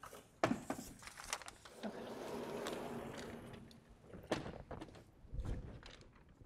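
Chalk writing on a blackboard: irregular taps and short scratchy strokes, with a longer stretch of scraping about two seconds in.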